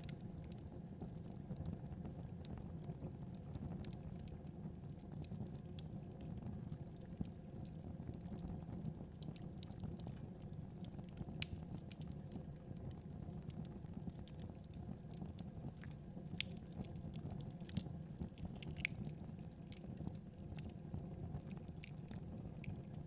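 Wood fire burning: a steady low rumble of flames with scattered sharp crackles and pops of burning wood, a few louder pops in the second half.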